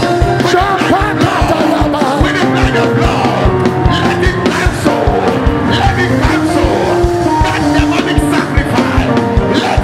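Church band music with a steady drum beat and sustained keyboard chords, with the voices of a congregation praying aloud together over it.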